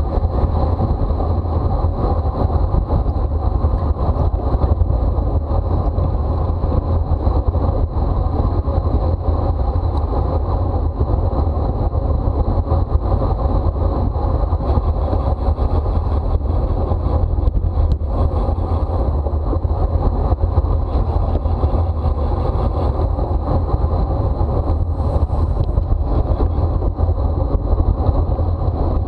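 Wind rushing over the microphone of a camera on a racing bicycle at speed: a loud, steady low rumble, with a faint steady high whine running through it.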